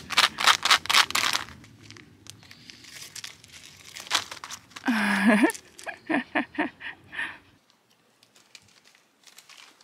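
Crinkling of plastic packaging: a quick run of sharp crackles in the first second or so, then fainter rustling. About five seconds in comes a short voice-like sound, followed by a few brief pitched sounds.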